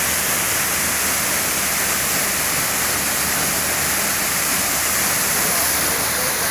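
A small waterfall cascading down a rock face close by, giving a steady, unbroken rush of falling and splashing water.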